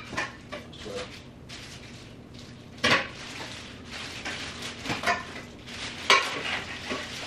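Metal parts of a basketball hoop kit clinking and clanking as they are handled and set down, with a few sharp knocks, the loudest about three seconds in and about six seconds in.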